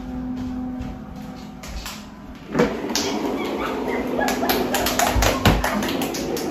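A man's quick footsteps, thumps and scuffs as he runs and crawls on a wood floor. They start suddenly about two and a half seconds in and keep going as an irregular clatter. Before that there is only a steady low hum.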